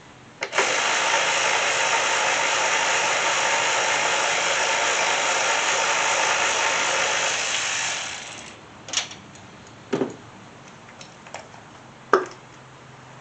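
A ratchet wrench spinning fast on engine-bay fasteners, a continuous clicking rattle that stops about eight seconds in. A few sharp clicks and knocks of tools follow.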